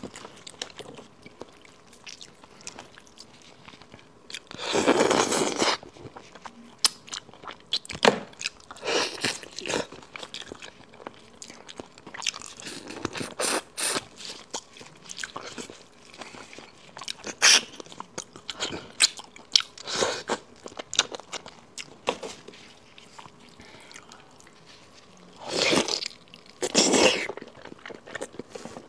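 Close-miked eating of braised pig's trotters: wet, sticky chewing and biting with many short lip smacks and clicks. Several longer sucking sounds stand out, the loudest about five seconds in and twice near the end.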